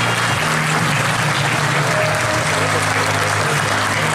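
Audience applauding steadily, a dense, even clapping from a seated crowd.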